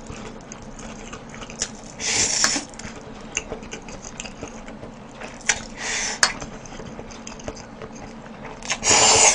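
A person slurping noodles from a bowl in three separate slurps, about two, six and nine seconds in, with light clicks of utensils against the bowl between them.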